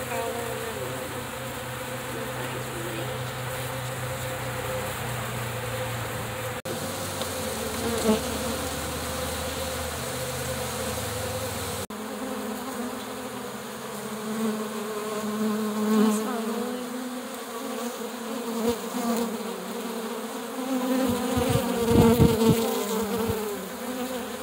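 Honeybees buzzing at close range in a dense cluster, with wasps among them, as they crowd in to feed. The steady hum changes abruptly twice, and a few low bumps come near the end.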